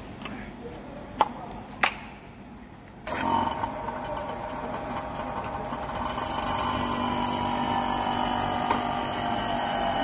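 Two sharp clicks, then about three seconds in a refrigeration vacuum pump switches on and runs steadily, evacuating the refrigerator's sealed system.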